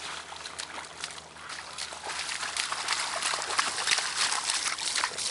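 A Bouvier dog wading through a shallow muddy puddle, its paws splashing and sloshing in the water in irregular steps, louder from about two seconds in.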